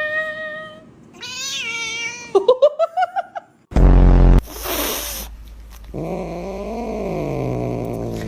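A cat meowing in long drawn-out calls: a steady meow, then a wavering one that breaks into a quick stutter of short rising notes. About halfway through there is a loud low thump and a brief burst of hissy noise, then a lower, longer yowl that bends up and down.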